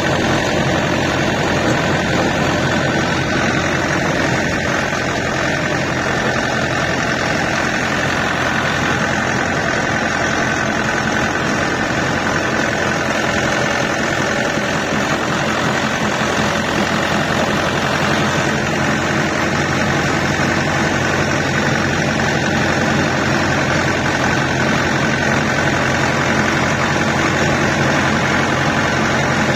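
Farm tractor's diesel engine running steadily as the tractor drives along, heard close up from the driver's seat.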